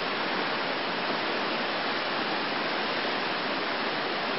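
River rapids rushing steadily, an even unbroken rush of water.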